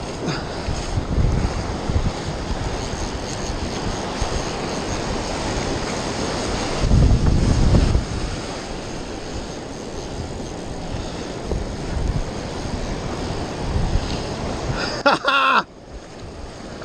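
Wind buffeting the microphone over surf washing onto the beach, with a strong gust about seven seconds in.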